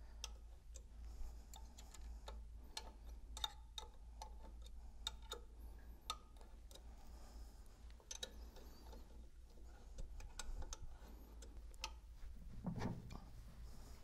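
Faint, irregular metallic clicks and ticks of a hex key being fitted into and turned in the socket-head bolts of a pump seal plate as they are tightened in a cross pattern, over a low steady hum.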